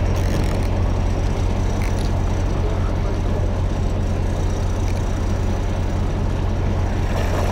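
Fishing boat's engine running at a steady low hum.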